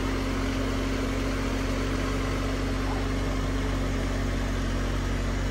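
A car engine idling, a steady hum with a constant low drone.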